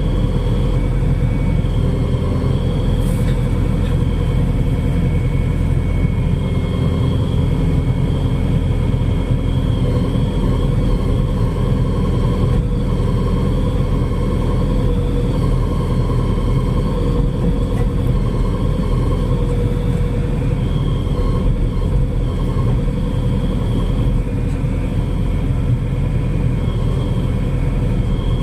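Diesel engine of a Xinyuan C80W wheeled excavator running steadily under work, a continuous heavy low rumble with no breaks.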